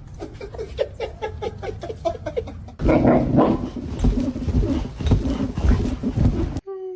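A dog whining in quick short cries, several a second, then a louder, noisier stretch of dog sounds from about three seconds in. A single falling whine starts near the end.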